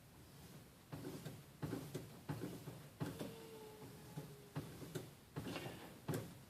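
Soft, repeated one-way strokes of a knife blade drawn along a leather strop loaded with polishing compound on a guided knife sharpener, roughly one to two strokes a second: the final stropping stage of sharpening.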